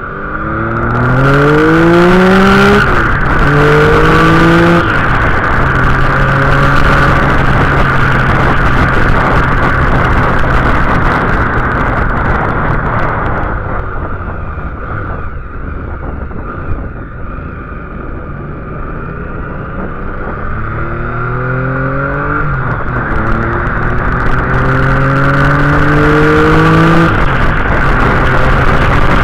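Motorcycle engine heard on board, pulling up through the gears with rising revs and quick shifts in the first five seconds. It runs steadier through the middle, then pulls hard through the gears again from about twenty seconds in, all under loud wind rush on the microphone.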